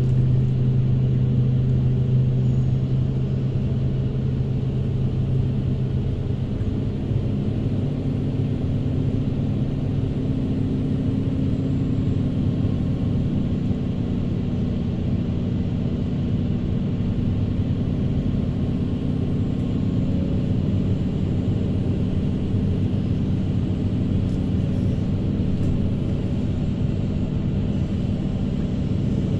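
Hydraulic excavator's diesel engine running steadily, heard from inside the operator's cab while the boom and bucket are held still. Its engine note changes slightly about seven seconds in.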